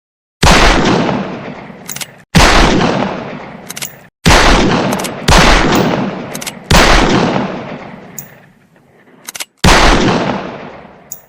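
Old West revolver fired six times at uneven intervals, each shot with a long echoing decay. Before each shot there is a short metallic click of the hammer being cocked.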